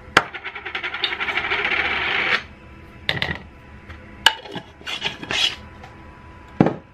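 A teaspoon scraping and rattling in a plastic jar of onion powder for about two seconds, then a few light clicks and knocks as the jar and spice containers are handled on the counter.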